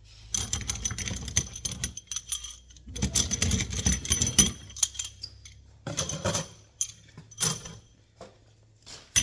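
Small steel fasteners, nuts and bolts, clinking and jangling against each other as they are handled, in several bursts of rapid metallic clicks with a bright ring.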